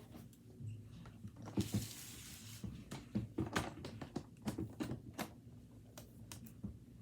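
Hands working a baseball card briefcase box: a series of light clicks and knocks with a brief rustling scrape about two seconds in.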